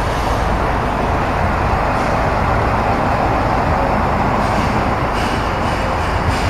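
Steady vehicle or traffic noise: a constant rumble and hiss with no distinct events.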